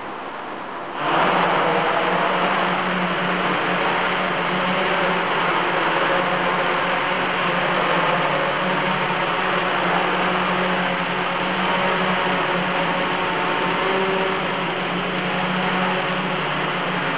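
Miniature quadrocopter's four electric motors and propellers spinning up suddenly about a second in, then running steadily at an even pitch as it takes off and hovers.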